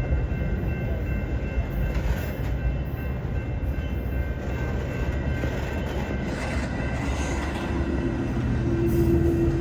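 Pair of Union Pacific freight diesel locomotives running as they pull away, a steady low rumble with rail noise. A steady hum joins in about three quarters of the way through and grows stronger near the end.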